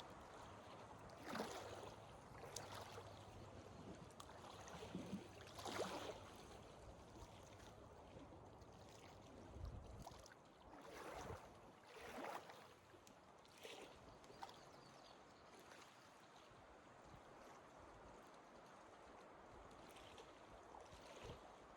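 Faint, steady wash of water, with a few soft, irregularly spaced splashes or crunches.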